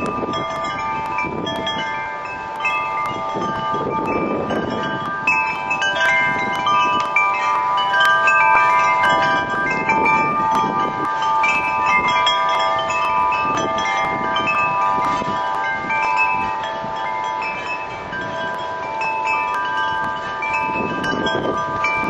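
Wind chimes ringing continuously in strong wind, many overlapping sustained notes, with gusts of wind buffeting the microphone now and then.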